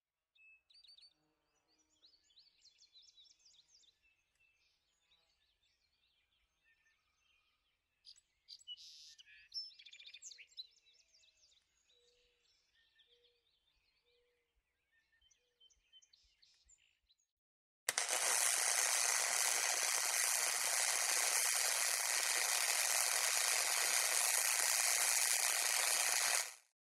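Faint birds chirping and calling. About eighteen seconds in, a loud steady hissing noise starts suddenly, runs for about nine seconds and cuts off sharply.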